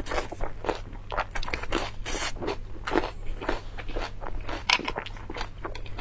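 A person chewing food close to a clip-on microphone: a quick, irregular run of mouth clicks, smacks and crunches.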